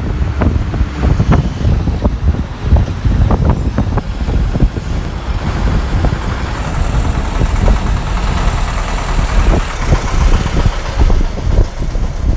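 Low, steady rumble of motor vehicles, with many short knocks and clicks scattered through it.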